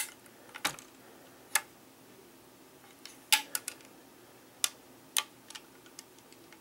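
Handling noise from the Sharps rifle being turned in the hand: irregular sharp clicks and taps of skin and metal on the action and stock, the loudest about half-way through.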